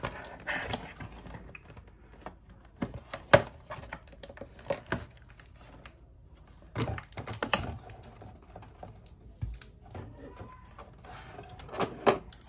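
Rigid clear plastic clamshell packaging being pried apart and handled: irregular clicks and crackles of the plastic, with the sharpest snap about three seconds in and another near the end.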